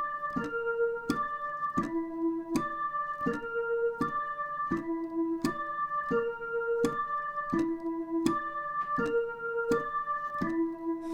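Dutch ambulance siren sounding a broken chord: steady electronic tones step from note to note, each held for under a second, and the pattern repeats about every three seconds.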